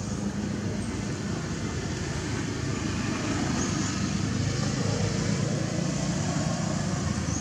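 Steady low rumble with a hiss above it, even throughout, with no distinct events.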